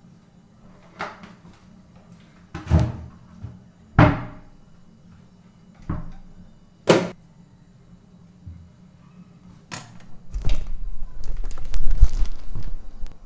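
Knocks and clunks of pots, lids and kitchen things being handled at a stove, about six sharp knocks spread over ten seconds. Near the end comes louder low rumbling and rustling as the camera phone is picked up and moved.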